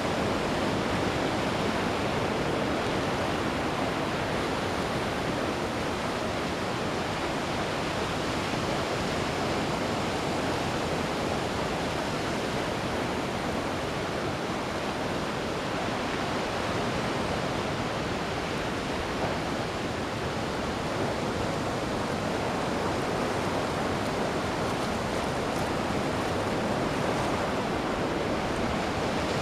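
Ocean waves breaking and washing on a beach, a steady wash of surf noise with no distinct gaps between waves.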